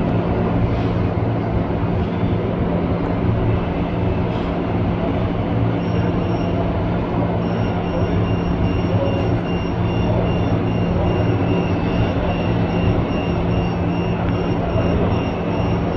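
RC construction machine running with a steady engine-like drone and a low hum. From about six seconds in, a high electronic beeping repeats about twice a second, like a reversing alarm.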